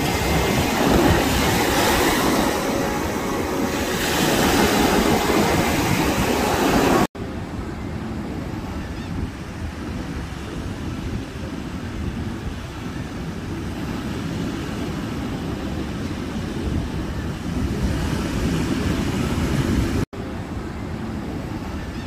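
Surf washing up on a sandy beach, loud and close, rising and falling with the waves. After an abrupt cut about seven seconds in, the surf is quieter and further off under a low wind rumble on the microphone, with another brief cut near the end.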